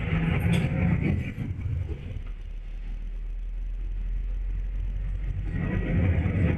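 Bus engine and road rumble heard from inside the moving bus, louder in the first second or so and again near the end, with a couple of short rattles about half a second and a second in.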